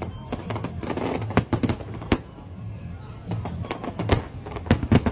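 Aerial fireworks shells bursting: a series of sharp bangs at irregular intervals, with a quick cluster of bangs near the end.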